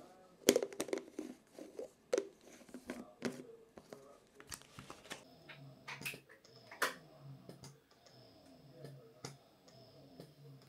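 Clicks and knocks of breast-pump parts being handled. Then, from about five seconds in, an electric double breast pump runs with a faint steady whine over an even, rhythmic suction pulse.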